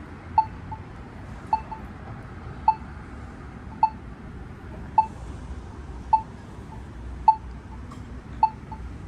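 Polara EZ Communicator accessible pedestrian signal pushbutton's locator tone: a short tick repeating about once a second, each with a fainter tick just after it. The slow tick marks the button's position for blind pedestrians while the signal is not in its walk phase.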